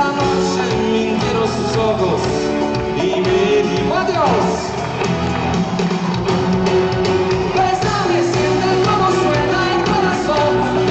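A pop song performed live: a band playing with singing.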